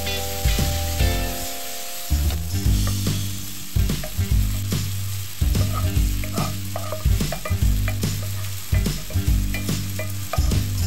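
Diced chicken sizzling in a nonstick frying pan as it is stirred. Sautéed diced vegetables are then scraped in from a second pan with a wooden spatula, giving short scrapes and taps over the steady frying hiss. Soft background music with a low bass line runs underneath.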